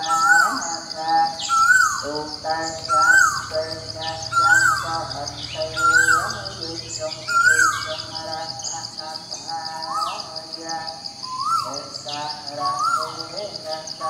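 Birds singing: a rising call repeats about every second and a half, with quick high chirps between, over a steady high-pitched trill.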